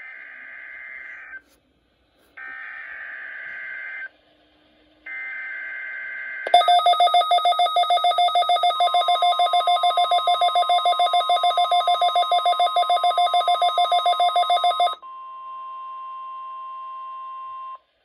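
Midland NOAA weather radio receiving a coded alert for a routine required test: three short buzzing bursts of digital header data, each about a second and a half long with a short gap between them. About six seconds in, the receiver sounds a loud, rapid pulsed alarm beep for about eight seconds. Under the beeping a steady single tone starts and carries on alone for about three seconds after the beeping stops.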